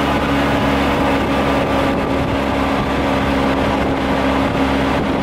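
Golf cart driving at a steady speed, its motor giving an even hum over road and wind noise.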